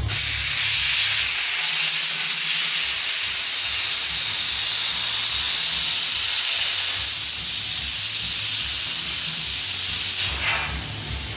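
Plasma cutter cutting through steel plate: a steady, loud hiss of the arc and its compressed air.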